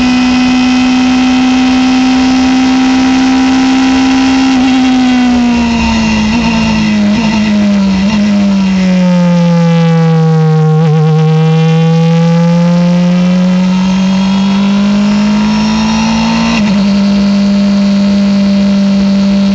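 Onboard sound of a Norma sports prototype's engine. It holds high revs flat out in sixth gear, then falls in steps through downshifts as the car brakes for a corner. It is at its lowest pitch through the bend, then rises steadily under acceleration until a sudden drop at an upshift about 17 seconds in.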